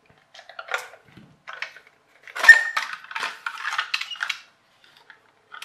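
Hard plastic clicking and clattering as the screwed-on body shell of a Golden Bear toy radio-controlled car is pulled off its plastic chassis: a few scattered clicks, then a denser, louder clatter from about two and a half seconds in.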